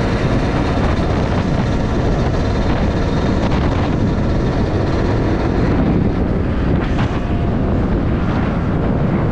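Steady wind rush over the microphone mixed with engine and road noise from a moving motorcycle.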